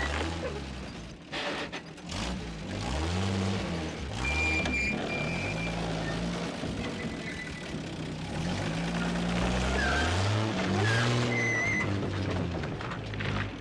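Modified GMC M211 military cargo truck's engine labouring at crawling speed, revving up and falling back several times, with the pitch rising and dropping.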